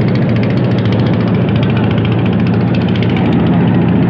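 Engine of a wooden river boat running steadily under way, with a fast even chug, and water rushing and splashing along the hull.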